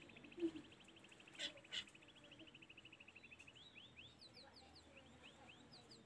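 Faint song of a hill blue flycatcher: a fast, even trill of high notes for the first three and a half seconds, then a run of separate short slurred whistles, with a few sharp clicks in the first two seconds.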